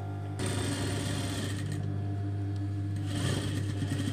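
Industrial lockstitch sewing machine starting to stitch about half a second in and running at a rapid, even stitch rate, easing briefly in the middle before running on. A steady motor hum lies underneath.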